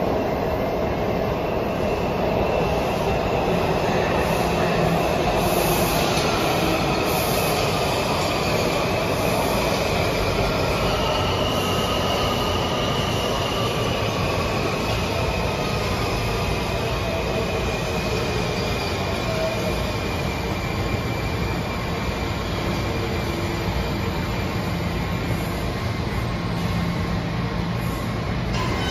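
Washington Metro train pulling into an underground station. The wheels rumble steadily on the rails, with a whine that falls in pitch as the train slows and a brief high wheel squeal partway through.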